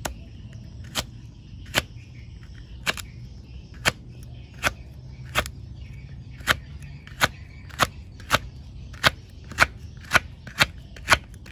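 Kitchen knife chopping through a pekaa (Oroxylum indicum) pod onto a wooden chopping board. Each cut ends in a sharp knock on the board, about one a second at first and quickening to nearly two a second near the end.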